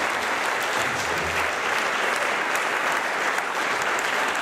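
Audience applauding steadily at the end of a big band number.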